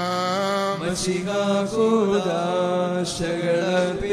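A man chanting a Malayalam liturgical hymn of the Syriac Orthodox Qurbana into a microphone, drawing out long held notes that step and glide slowly in pitch, with brief breaks between phrases.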